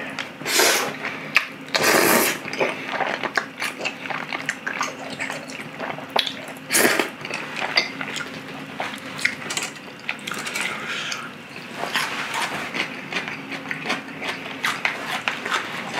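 Close-miked eating sounds: a person slurping udon noodles and chewing, with wet mouth clicks throughout and three louder slurps, the last about seven seconds in.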